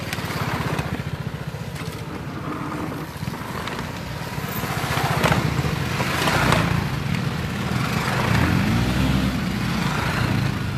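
BMW G 310 GS motorcycles' single-cylinder engines running as the bikes ride down a dirt slope in turn, getting louder as they pass. Near the end the engine note rises and falls with the throttle.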